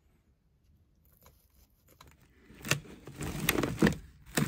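Black plastic plug trays being handled on a wooden seeding table. A few faint taps at first, then from about two and a half seconds in a run of sharp knocks and scraping.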